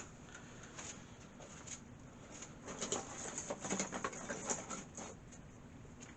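Irregular small clicks and rustles of hands handling computer cables and connectors inside a PC case, busiest in the middle seconds.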